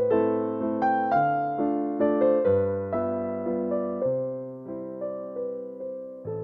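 Background music: a gentle electric piano melody, notes struck about twice a second and left to fade.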